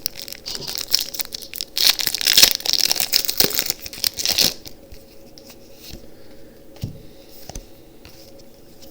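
Foil Pokémon TCG booster pack wrapper crinkling as it is torn open. The crinkling is loudest about two to four seconds in, then gives way to quieter handling with a few soft clicks.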